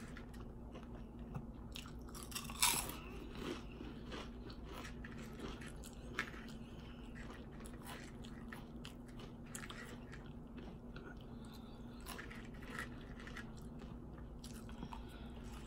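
Close-up eating sounds of ridged potato chips: quiet chewing broken by scattered crisp crunches, the loudest a little under three seconds in. A steady low hum runs underneath.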